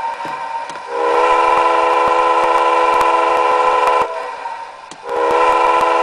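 A Tsunami model-locomotive sound decoder plays two long locomotive horn blasts through a small 23 mm high-bass speaker. The first starts about a second in and stops about three seconds later. The second starts about a second after that and is still sounding at the end.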